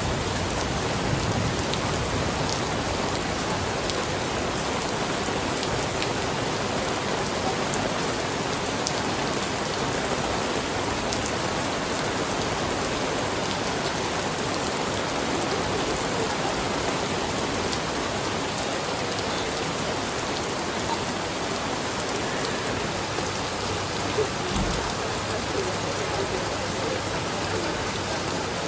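Steady rain falling and pattering on hard surfaces, with scattered drip ticks and one brief low thump near the end.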